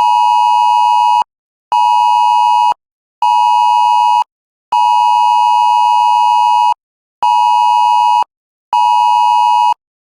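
Emergency Alert System-style two-tone attention signal, a steady dual tone near 900 Hz, sounded in six pulses: long, short, short, long, short, short, with short gaps between.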